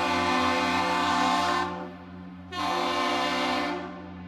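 Stuck air horn on the Great Lakes freighter Mesabi Miner, blowing nonstop from a malfunction. The loud blast drops away about 1.7 s in and comes back from about 2.6 to 3.7 s, while a lower steady tone carries on through the gaps.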